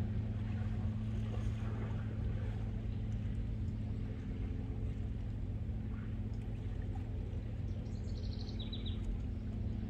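A steady low engine drone. A short, rapid bird trill comes near the end.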